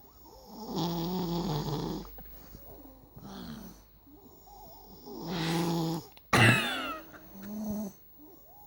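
A small boy snoring loudly: two long, pitched snores about four seconds apart with a softer one between them. A sudden short, sharp sound follows just after the second snore.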